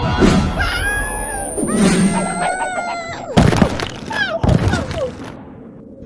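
Cartoon sound effects for a caveman character tumbling out of a time portal and falling: yelling cries that slide up and down in pitch, a thin high whistle falling slowly in pitch, and sharp thuds and crashes, the loudest about three and a half seconds in.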